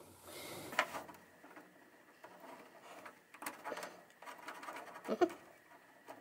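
Faint handling noise of insulated wire leads and a plastic wiring connector: light rustling with a few small clicks as the wire terminals are pushed into the connector housing.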